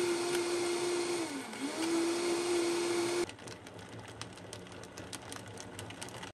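Vitamix Total Nutrition Center blender running, grinding banana, milk and almonds into a drink. The motor's steady whine dips briefly once about a second and a half in. About three seconds in it drops to a quieter, crackly whir with many small clicks.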